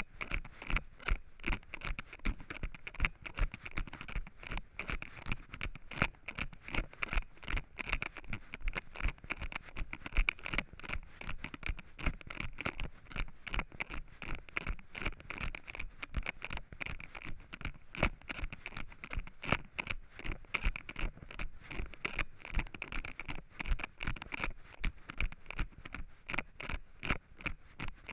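Running footsteps on a dirt forest trail with leaves, a quick, regular beat of about three steps a second, mixed with the scraping and rubbing of the hand-held camera being jostled.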